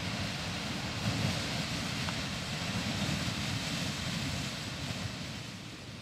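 Beehive Geyser erupting: the steady rushing hiss of its water and steam column, with a fluttering low rumble of wind on the microphone. The hiss eases a little near the end.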